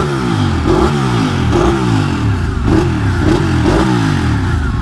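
Sport motorcycle engine revved in a series of about six quick throttle blips, the pitch rising and falling with each one. It sounds like a non-stock exhaust.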